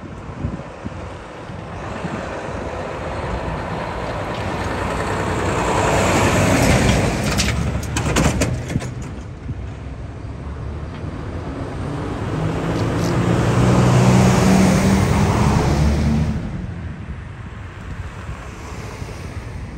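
Isuzu Giga heavy trucks driving past one after another. Each diesel engine grows louder as the truck comes by and fades as it goes, with the second pass showing a clear low engine drone. A brief run of sharp clicks comes about eight seconds in.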